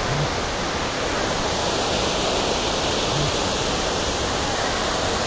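Steady, unbroken rush of a large waterfall heard at close range, with water pouring and crashing into the pool below.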